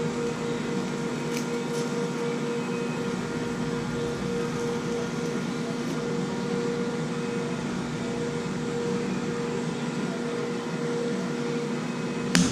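Small portable welder running with a steady electrical hum and buzz, with a couple of faint ticks early on and a sharp clank just before the end.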